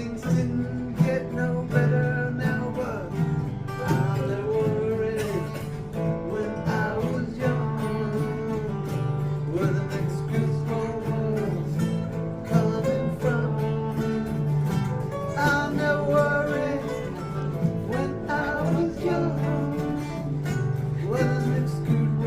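Country music instrumental break: guitars playing a steady accompaniment under a lead melody that slides between notes.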